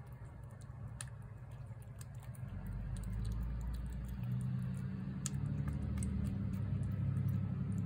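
A cat eating wet food off a plate: faint, sharp clicks of chewing and licking, over a low rumble like a vehicle engine that gets louder about two and a half seconds in.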